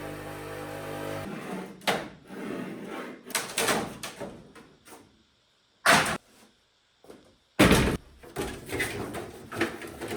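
Rafter vent baffles being worked into place overhead: rustling and scraping with two loud, sharp knocks, after a low steady hum that stops about a second in.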